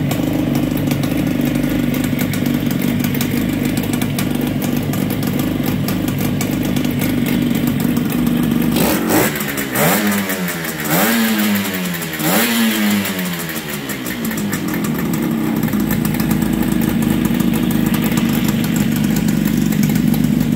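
1964 Yamaha YDS3's 250cc two-stroke twin engine idling steadily. About halfway through it is blipped three times in quick succession, each rev falling back, and then it settles to idle again.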